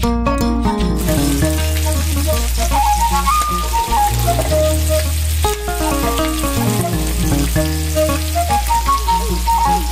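Whole spice-coated koi fish (climbing perch) sizzling steadily as they fry in oil in a flat griddle pan, the sizzle coming in about a second in, over background music.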